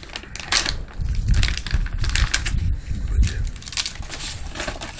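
Plastic MRE ration pouches being handled, crinkling and crackling in irregular clicks.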